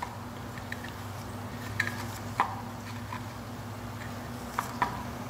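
Gloved hands handling and working lube onto the gasket of a Pentair Whisperflo pump's plastic seal plate: a few scattered clicks and taps, over a steady low hum.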